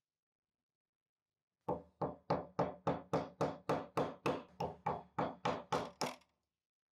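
Small hammer tapping on metal knife parts, about sixteen quick, evenly paced blows at roughly three a second, starting about two seconds in.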